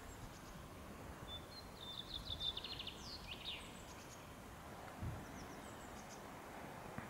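Faint outdoor ambience with a small songbird singing in the background: a quick high trill about a second in, then a few falling notes, with scattered faint chirps later. A soft low thump comes about five seconds in.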